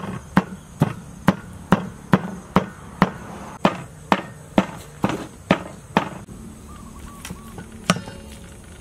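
Cleaver chopping minced pork on a wooden chopping board: sharp, even knocks about two a second that stop about six seconds in, with one more knock near the end.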